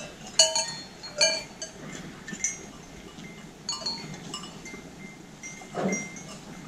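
Large bells worn by carnival costume figures clanking and jangling irregularly as the wearers walk, a few loud strikes in the first second and a half, then sparser clanks with a lingering ring.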